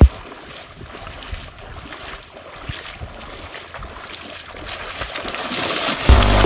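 Feet wading and splashing through shallow muddy water, with wind noise on the microphone. The splashing and wind grow louder toward the end.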